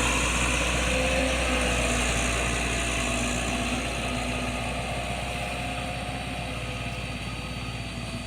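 Dump truck engine running steadily at a low, even pace, slowly growing fainter.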